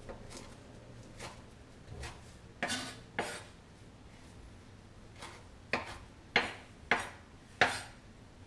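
Knife chopping parsley on a wooden cutting board: sharp knocks of the blade striking the board, spaced unevenly, with several louder ones close together in the second half.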